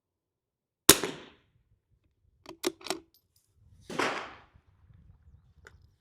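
A .22 LR rimfire rifle shot about a second in, followed by three quick metallic clicks as the single-shot bolt is worked. A second, softer report comes about four seconds in.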